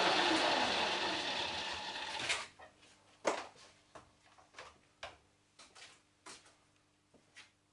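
Metal lathe spinning down after being switched off, its pitch falling until it stops abruptly about two and a half seconds in. A series of light, irregular ticks and clicks follows.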